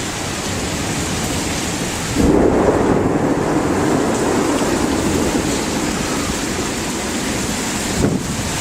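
Severe thunderstorm: steady heavy rain and gusting wind, with a low rumble of thunder swelling about two seconds in and rolling on.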